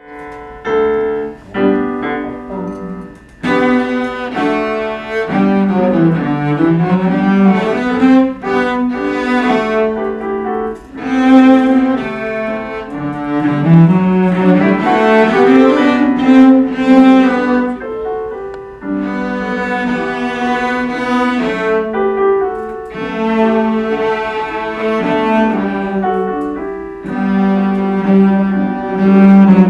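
Several cellos, a teacher's and children's, bowing a simple beginner march in G major together, with a piano accompaniment on an electric keyboard.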